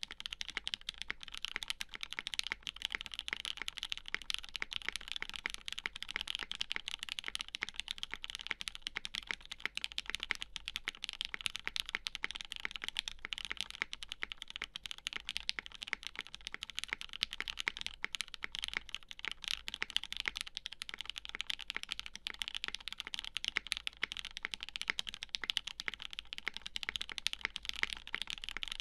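Continuous fast typing on a custom 60% mechanical keyboard: lubed Gateron Ink linear switches on a UHMWPE plate with GMK keycaps, keystrokes running together in a dense, even stream of clicks.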